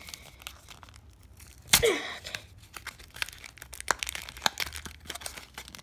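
Cardboard backing of a Pokémon card blister pack being torn and peeled open by hand, with crinkling packaging and many small crackles. One loud sharp rip comes about two seconds in.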